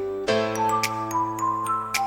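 Instrumental background music: sustained chords under a light melody of high bell-like notes, with a soft click on the beat.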